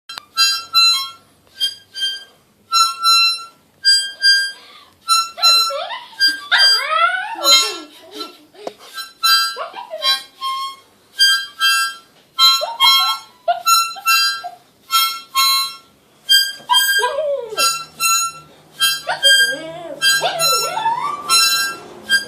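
Short, repeated blown notes on a small reed wind instrument, with a dog howling along in rising and falling, wavering cries from about five seconds in, several times over.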